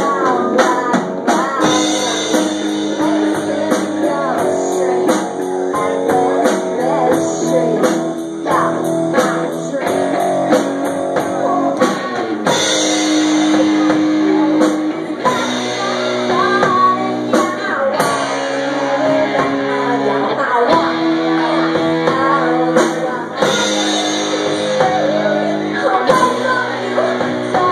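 Live rock band playing: electric guitar over a drum kit, with a woman singing.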